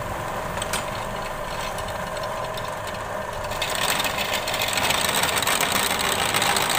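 Drill press with a 2 hp electric motor running steadily. About three and a half seconds in, the bit starts cutting into a flat steel strip, adding a harsh grinding hiss that grows louder.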